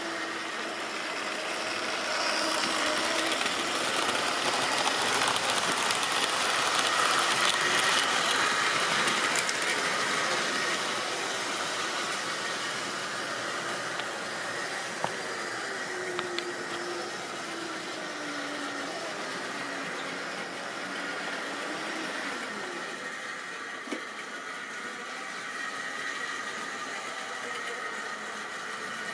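Model railway trains running: small electric locomotive motors whirring and wheels rattling along the track. The sound swells after about two seconds and eases back by about eleven seconds, with a few light clicks later on.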